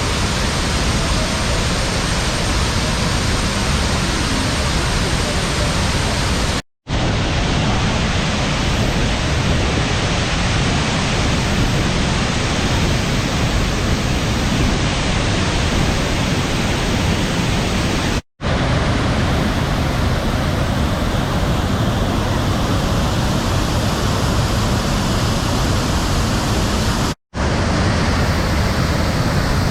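Waterfall: a loud, steady rush of falling water over rock, broken three times by a split-second gap of silence where clips are joined.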